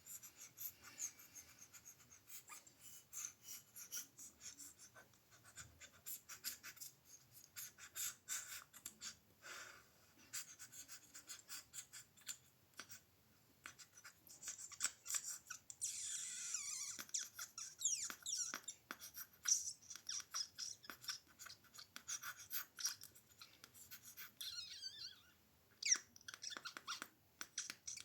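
ASMR mouth sounds: a rapid string of wet tongue clicks and lip smacks, with a few squeaky gliding sounds about halfway through and again near the end.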